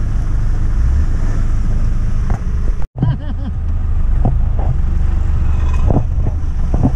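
Land Rover 110 driving along a rough off-road track, heard from inside the cab as a steady low engine and drivetrain rumble with occasional knocks and rattles. The sound cuts out for an instant about three seconds in.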